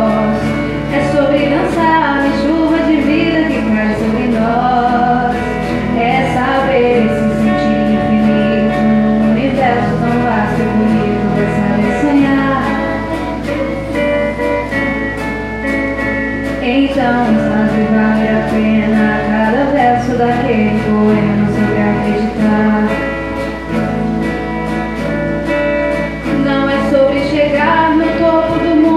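Live performance of a slow Brazilian pop song: a solo singer sings into a microphone, accompanied by strummed acoustic guitars.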